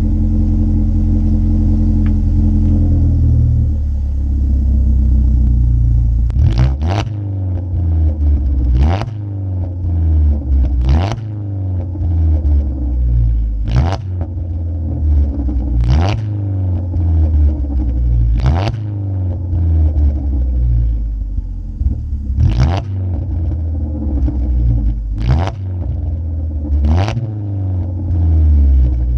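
Muffler-deleted exhaust of a 2015 Ford Focus SE's 2.0-litre four-cylinder, running steadily at first. From about six seconds in, sharp pops and crackles come every two to three seconds as the revs swing up and down.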